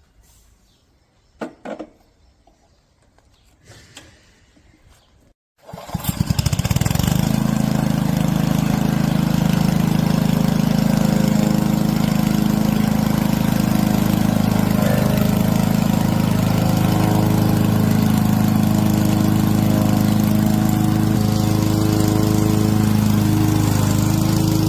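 A few faint knocks, then about six seconds in a Honda lawn mower's four-stroke engine starts, picks up speed quickly and settles into steady running at a constant speed.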